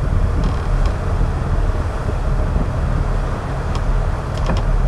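Engines of a 58-foot sportfishing boat running steadily at trolling speed, a constant low rumble mixed with the rush of the wake. A few light clicks come about half a second in and again near the end.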